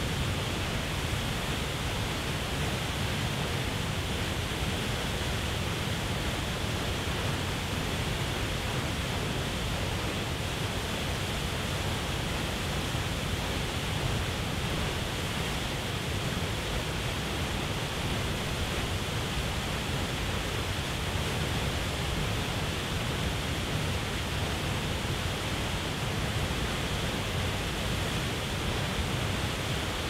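Waterfall plunging into a pool: a steady, unbroken rush of falling and churning water, deep and even throughout.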